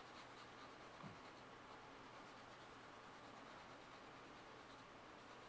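Faint, steady rubbing of a sanding stick on a small plastic model part, sanding off the raised glue seam.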